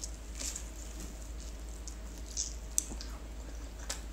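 A person chewing and biting roast turkey drumstick meat up close, with soft wet mouth sounds and a few small sharp clicks.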